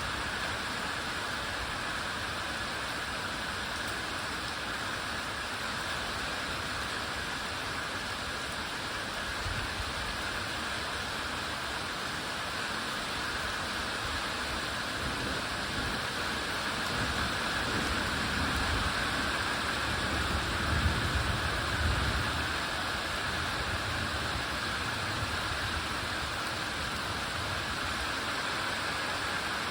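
Steady rain, with a low roll of thunder building after about sixteen seconds, peaking a few seconds later and dying away.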